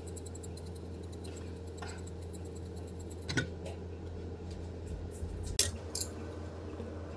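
Metal seasoning shaker or grinder worked over a dish, giving a quick run of small clicks; then a single clink of the ceramic dish about three seconds in and two knocks of dishes set down a couple of seconds later, over a steady low hum.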